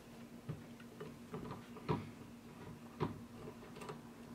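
A steel T-handle socket wrench handled against a model rotary engine: a handful of sharp metal clicks and taps at uneven intervals, the strongest about two and three seconds in, over a faint steady hum.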